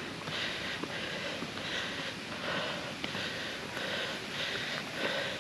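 Heavy, rhythmic breathing close to the microphone, about two breaths a second: a person panting, out of breath from climbing a steep rock slope.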